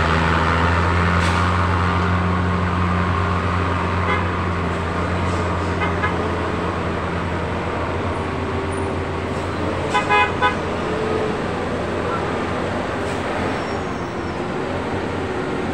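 Road traffic of heavy trucks and cars passing, with a low steady engine drone through the first half. About ten seconds in, a vehicle horn gives three quick toots, after a couple of fainter short beeps earlier.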